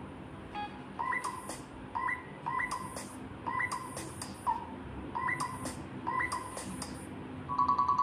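Ringtone previews playing from a Lava Agni 5G smartphone's speaker as ringtones are picked in turn: a repeating pattern of short, bright notes. Near the end it switches to a different tone of rapid, even pulses.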